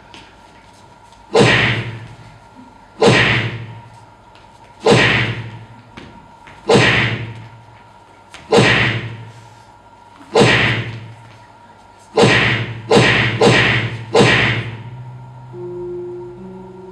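A series of heavy, echoing thuds, seven evenly spaced about every two seconds, then three in quicker succession. Low sustained musical notes begin near the end.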